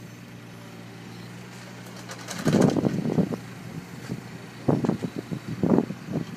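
Hyundai R220LC-9A long-reach excavator's diesel engine running steadily as the machine lifts and swings a bucket of earth. The hum is broken by loud, irregular rushes of noise about two and a half seconds in and again near the end.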